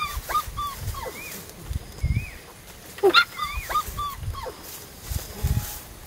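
A puppy whimpering and yelping in many short, high-pitched cries that rise and fall, a loud cluster of them about three seconds in. Dull thumps sound among the cries.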